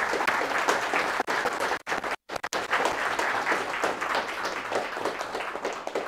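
Audience applauding: many hands clapping densely together, cut by two very short dropouts about two seconds in and dying away at the very end.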